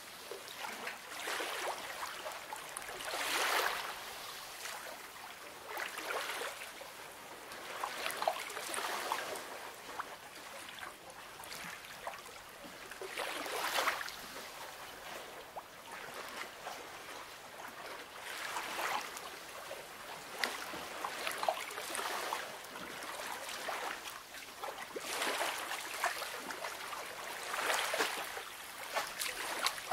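Calm sea lapping at the shore: small waves wash in every few seconds with light splashing, easing between each wash.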